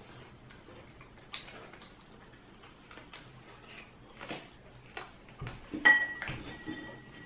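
Quiet eating sounds: small clicks and smacks of barbecued meat being pulled apart by hand and chewed. About six seconds in, cutlery strikes a ceramic plate with a sharp clink that rings on for about a second.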